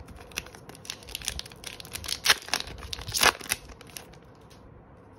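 Foil Pokémon booster pack wrapper crinkling and crackling as it is handled and torn open, loudest about two and three seconds in, then dying away.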